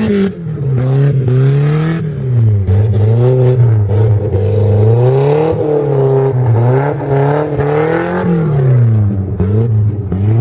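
A Volvo drift car's engine on the throttle and off again, its pitch climbing and falling several times as it drifts around the ice track.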